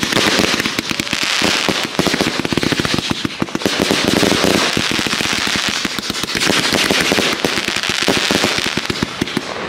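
Consumer fireworks going off: a dense, rapid crackling of popping stars over a steady hiss of burning charges, with no break.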